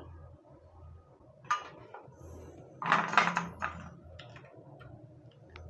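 Workbench handling noise: a few light clicks and a short metallic clatter about three seconds in, as the soldering iron is lifted away and set down after soldering a joint.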